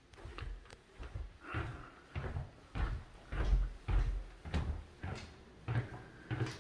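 Footsteps at a steady walking pace, about two a second, each a dull thump with a light scuff.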